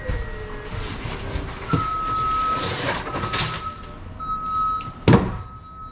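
Cardboard box being handled and opened, flaps and card rustling with a few knocks, then a sharp thump about five seconds in as the emptied box is dropped on the floor. A high beep repeats about once a second from about two seconds in.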